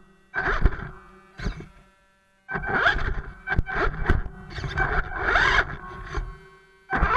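RC crawler's electric motor and drivetrain whining in throttle bursts: two short blips, then a longer run with rising and falling pitch, stopping dead in between.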